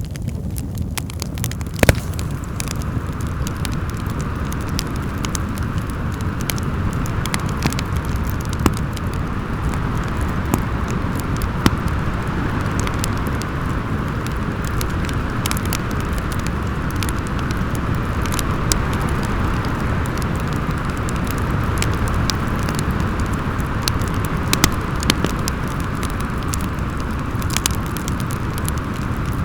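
Fireplace fire crackling with scattered sharp pops, over a steady howling wind.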